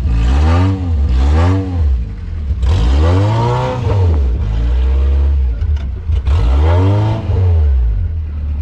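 A modified 4x4 jeep's engine revving in repeated blips as it climbs a sand mound, each blip rising and falling in pitch. The blips come about once a second at first, then stretch into two longer swells, and the engine settles to a steady idle near the end.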